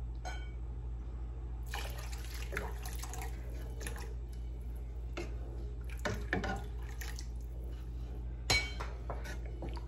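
Spoon stirring and scraping through the watery fenugreek curry in a cooking pot, with scattered clinks against the pot, the loudest about eight and a half seconds in, over a steady low hum.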